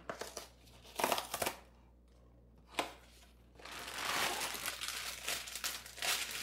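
Cardboard box of frozen beef patties torn open in a few short rips, then the plastic-wrapped patties crinkling as they are pulled out of the box, from about halfway through.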